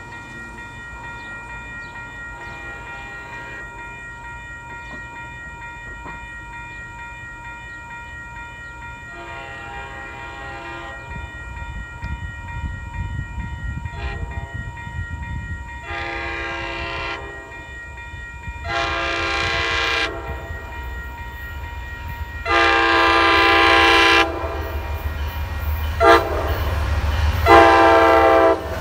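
MBTA commuter train's diesel locomotive sounding its horn as it approaches, a series of blasts that grow louder as it nears, the last four going long, long, short, long: the standard grade-crossing signal. The train's low rumble rises underneath.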